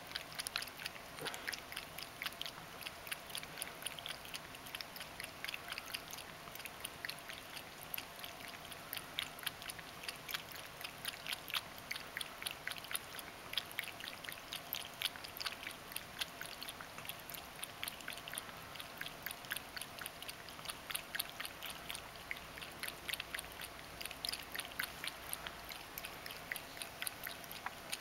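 Ragdoll cat lapping water from a small bowl, a quick regular run of tongue clicks.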